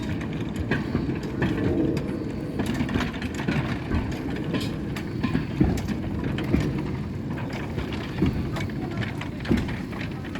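Replica 'Puffing Billy' early steam locomotive working: a continuous low mechanical noise with irregular sharp knocks and clanks.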